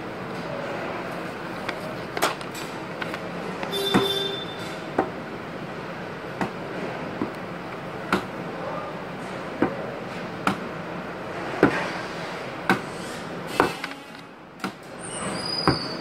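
Paperwork being handled at an office counter: irregular sharp clicks and knocks, about a dozen, over a steady background hum. A short beep sounds about four seconds in, and high electronic beeps come near the end.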